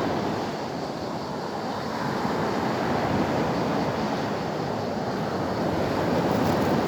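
Sea waves washing onto the shore: a steady rushing of surf that slowly swells and eases, with some wind on the microphone.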